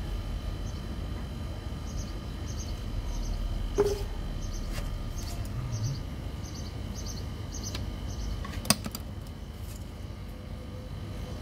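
Grey PVC pipe and fittings being handled and fitted by hand, with two sharp plastic clicks: one about four seconds in and a louder one near nine seconds. Under them runs a steady low rumble with faint repeated high chirps.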